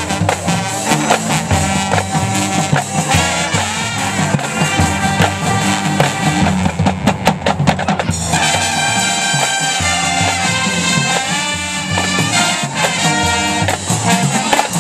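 High school marching band playing: brass over drums and a moving bass line, with a steady beat. About eight seconds in the drum strokes thin out under held brass chords.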